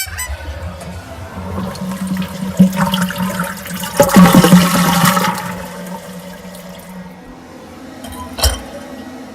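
A toilet flushing. A click at the start, then rushing water builds and is loudest about four seconds in before dying down to a quieter steady run. A short thump comes near the end.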